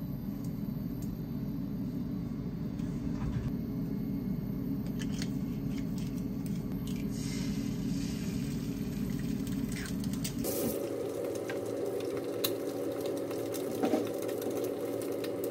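Frying pan handled on an induction hob and an egg cracked into it: light clicks and taps over a steady low hum. About ten seconds in the hum shifts higher, with faint hiss, while the egg fries in the pan.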